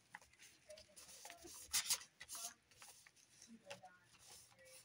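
Soft rubbing and rustling of paper as hands press and smooth a glued paper piece flat onto a journal page, with a couple of louder brushing strokes about two seconds in.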